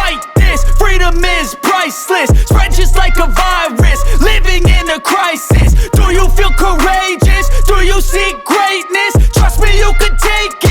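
Hip hop music with deep bass notes every second or two under a wavering melodic line.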